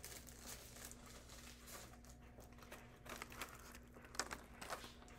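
Faint rustling and crinkling of a sheet of rhinestone transfer tape being handled, a few soft bursts from about three seconds in, over quiet room tone with a low steady hum.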